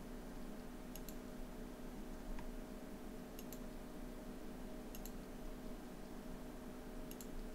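Computer mouse clicking four times, a few seconds apart, each a quick press-and-release double tick, over a faint steady hum.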